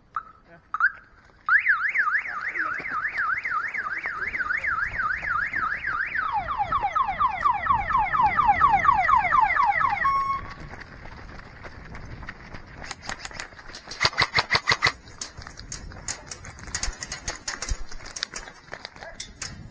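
Electronic siren, the signal for the round to start, after a brief chirp. It sounds a rapid up-and-down wail about twice a second, switches to a faster, lower yelp, and cuts off abruptly about ten seconds in. Bursts of rapid sharp clicks follow.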